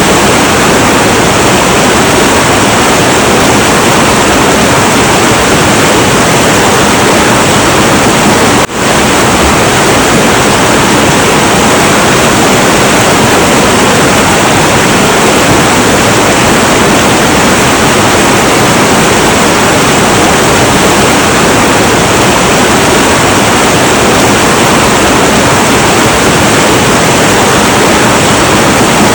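Heavy, turbulent river water rushing in a loud, unbroken wash of noise, with a brief dip in level about nine seconds in.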